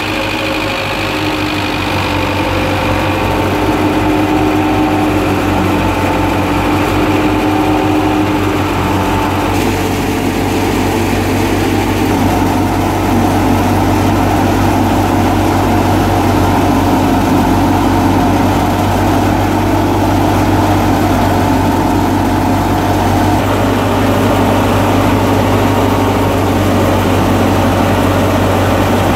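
Tractor-driven wheat thresher running: the Belarus tractor's diesel engine runs steadily under load through the drive shaft, with the thresher's drum, flywheel and belts whirring. The tone shifts once, about ten seconds in.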